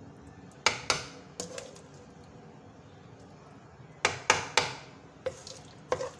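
A cooking spoon knocking against a nonstick frying pan while chicken curry is mixed into boiled rice: about ten sharp knocks in three bunches of two to four, each with a short ring from the pan.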